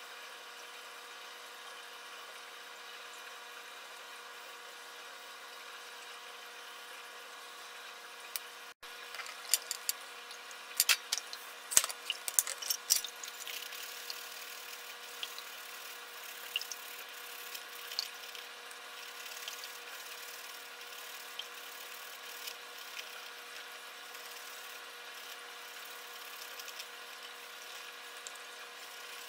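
A steady background hum throughout. About nine seconds in, sharp clicks and knocks of a stainless-steel hand grater and a small ceramic plate being handled, followed by faint, irregular scraping and ticks of garlic being grated.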